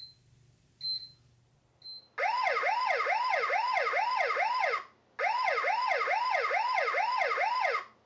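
Eufy HomeBase 2's alarm siren sounding in two bursts of about two and a half seconds each, a fast warbling sweep about three times a second. Before it come three short high beeps about a second apart, the exit-delay countdown after the system is armed.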